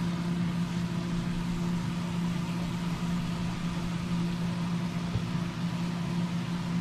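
Ground beef cooking in a pot while it is stirred with a spatula, heard as a soft, even hiss over a steady low hum.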